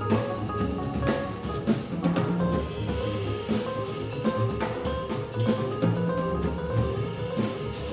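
Live jazz: a grand piano playing a run of quick notes, with an upright double bass and a drum kit keeping time.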